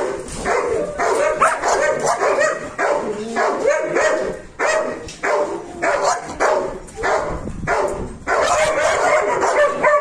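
Dog barking and yelping excitedly, short calls coming a few times a second with hardly a pause.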